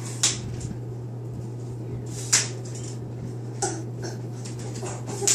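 A few short, sharp clicks and knocks of small objects being handled, spaced a second or more apart, over a steady low hum.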